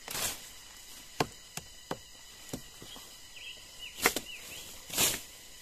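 A blade chopping into a fallen branch: about seven sharp, irregular blows, the two loudest about four and five seconds in.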